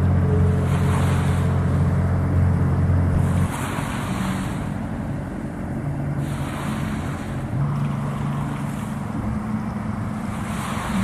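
A boat's motor running steadily under wind buffeting the microphone and water washing past the hull; the motor drops in level about three and a half seconds in.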